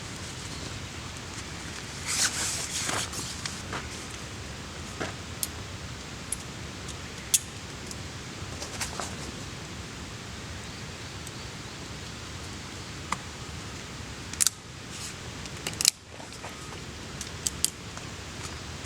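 Steady outdoor hiss with scattered sharp clicks and light rustling, a louder burst of rustling about two seconds in and a few sharper clicks near the end.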